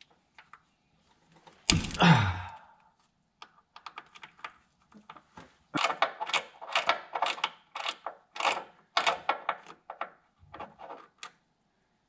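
Quarter-inch ratchet with a 10 mm socket on a small extension clicking as it works a power steering hose bolt on the pump: scattered clicks, then a quick run of about four clicks a second from about six to ten seconds in. A brief loud sound with a falling pitch comes about two seconds in.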